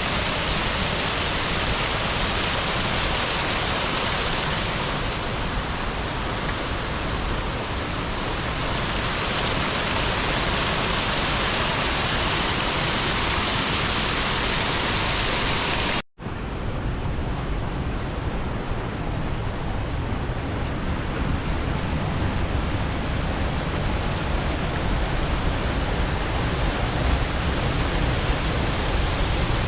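Spring water gushing and cascading, a steady rushing sound. It cuts out for an instant about halfway through and comes back duller, with less hiss.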